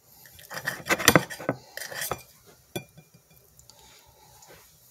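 Kitchen utensils clinking and clattering against a dish while raw chicken is cut into pieces: a run of quick clinks in the first two seconds, then one sharp click nearly three seconds in.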